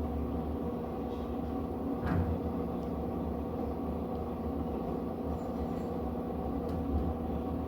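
Electrolux LTE08 top-load washing machine running partway through its cycle, a steady low motor hum with one brief knock about two seconds in.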